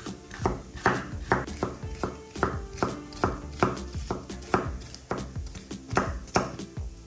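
Knife chopping on a cutting board in an even rhythm of about two strokes a second, with background music.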